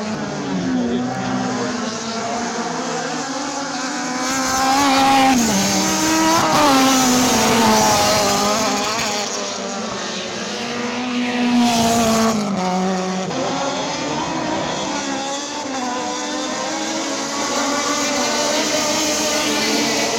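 Race car engine revving hard on a circuit, its pitch climbing and dropping sharply several times with gear changes and lifts off the throttle.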